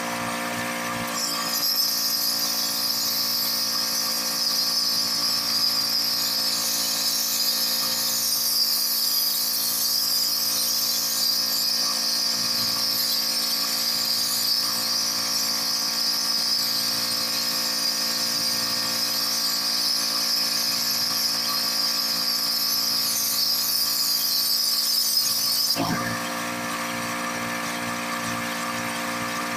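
Pressure washer running with a steady hum while its wand sprays a high-pressure water jet onto brick patio pavers. The hissing spray starts about a second in and cuts off suddenly near the end, leaving the machine's hum.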